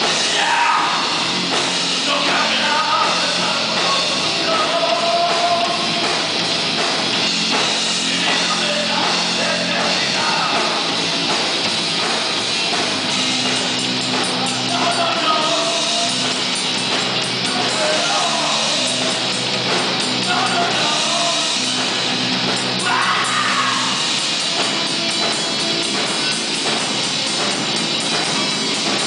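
A rock band playing live on electric guitar, bass guitar and drum kit, with a voice singing over the band for most of the stretch and the instruments carrying on alone near the end.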